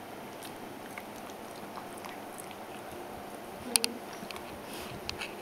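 Pekingese puppy chewing his food: faint, irregular small clicks of eating, with one sharper double click about two-thirds of the way through.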